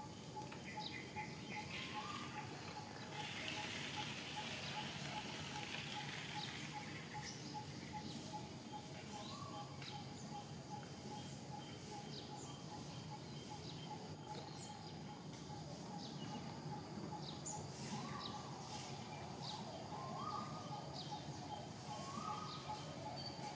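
Outdoor ambience of birds and insects: a steady pulsing note repeating about four times a second, with short calls every few seconds that come more often near the end, over a low background hum. A soft rushing hiss swells and fades a few seconds in.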